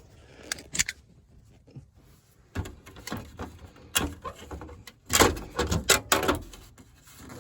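Knocks, clicks and scraping of a furnace's Space-Gard media air filter cabinet being opened and the filter slid out, loudest about five seconds in.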